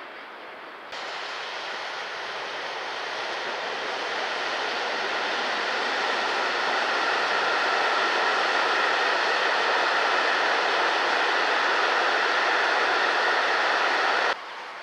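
Freight train of covered goods wagons rolling past on the track: a steady rush of wheel and rolling noise. It comes in abruptly about a second in, grows louder as the wagons come closer, and cuts off abruptly near the end.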